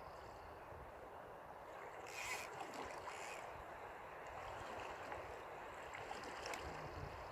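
River current running past stones at the water's edge, a steady wash of water, with a brief louder, hissier burst about two seconds in.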